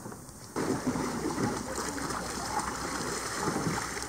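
Lakeshore ambience where kayaks are being launched: a steady rushing hiss with water sounds and faint distant voices, cutting in about half a second in after a brief quieter moment.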